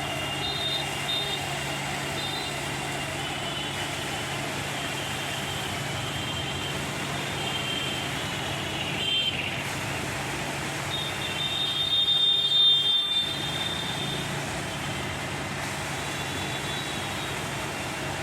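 Diesel engine of a transit mixer truck running steadily while it discharges concrete, with faint high-pitched whines coming and going and a louder surge about twelve seconds in.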